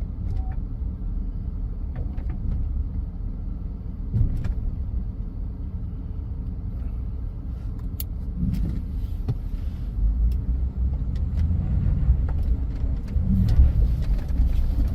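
Flatbed truck driving on gravel: a steady low engine and road rumble with a few scattered clicks, growing louder about ten seconds in.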